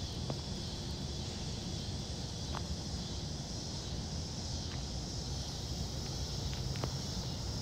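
Evening outdoor ambience: a steady high-pitched insect chorus over a continuous low rumble, with a few faint short chirps or clicks.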